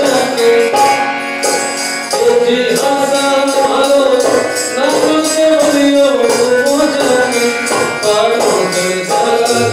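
Live Rajasthani folk music: a man singing over harmonium and dholak, with a quick, steady beat of high percussion.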